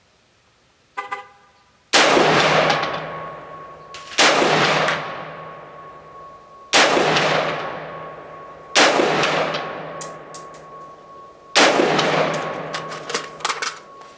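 Five single shots from an AR-15-pattern rifle firing 55-grain .223/5.56 ammunition, spaced about two to three seconds apart, each with a long echoing decay. A brief tone sounds about a second in, before the first shot, and light clicks follow the last shot.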